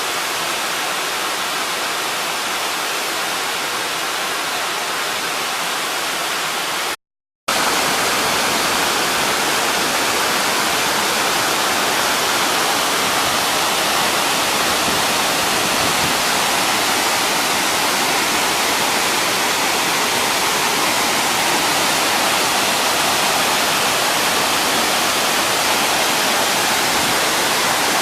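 Waterfall water rushing in a steady, dense roar of noise. It drops out for a moment about seven seconds in, then resumes a little louder.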